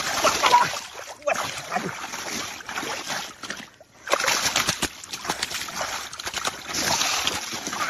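Splashing and sloshing in shallow muddy water as hands grapple with a large snakehead, in irregular quick splashes with a short break about halfway through.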